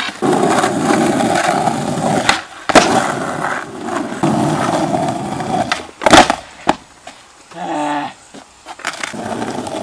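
Skateboard wheels rolling over asphalt, broken twice by sharp clacks of the board striking the ground, about two and a half seconds in and again about six seconds in. The rolling picks up again near the end.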